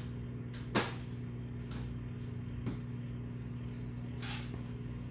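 Small plastic-wheeled kick scooter rolling on a concrete floor, with a sharp click about a second in, a fainter one a couple of seconds later and a short scrape near the end. A steady low hum runs underneath.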